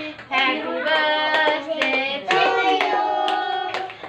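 Women and children singing a song together while clapping their hands in time.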